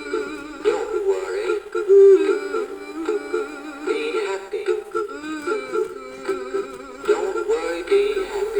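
Big Mouth Billy Bass animatronic singing fish playing its song through its small built-in speaker: a synthetic singing voice over music, thin with little bass.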